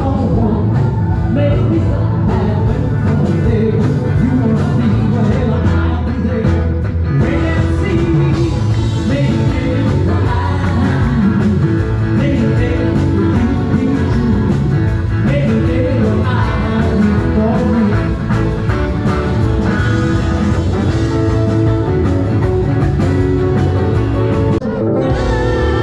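Rock-and-roll band playing live with a singer and guitar over a steady beat.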